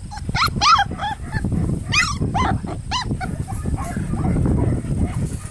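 Four-week-old Kelpie puppies yelping and whining: a string of short, high, arching cries, most of them in the first three seconds.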